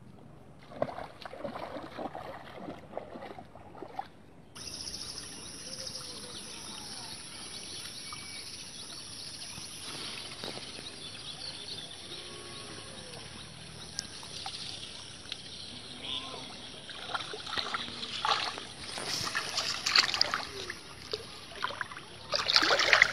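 Shallow muddy water sloshing and splashing as a bamboo fish trap is pushed down into a rice-field channel and feet wade through it. The splashes come in scattered strokes, growing denser and louder over the last several seconds.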